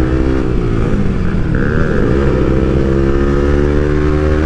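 Yamaha R15's single-cylinder engine running through a replica Leo Vince Cobra exhaust with its dB killer removed, at a steady cruise. The engine note dips and climbs back once about two seconds in.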